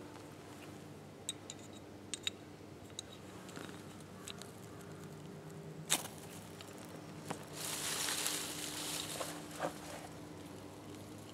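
Fire-starting rod scraped with a striker over tinder: a few short, sharp scrapes, the loudest about six seconds in as sparks shower onto the tinder. About a second later comes a rustling hiss lasting roughly two seconds, and a small flame is alight by the end.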